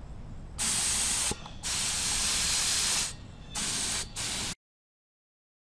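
Compressed-air paint spray gun spraying dope in four trigger pulls of steady hiss, the second the longest. The sound cuts off suddenly about four and a half seconds in.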